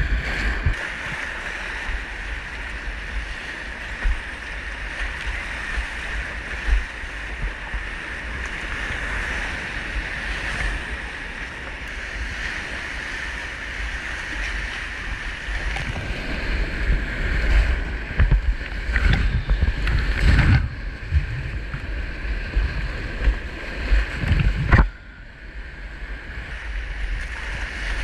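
Whitewater rapids rushing around a kayak, with waves splashing and slapping against the microphone in heavy, irregular thumps from about halfway on. About three seconds before the end the rush drops away abruptly, then builds back up.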